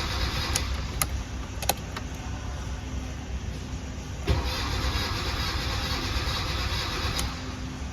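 A car engine running with a steady low rumble. There are a few sharp clicks in the first two seconds and a thump about four seconds in.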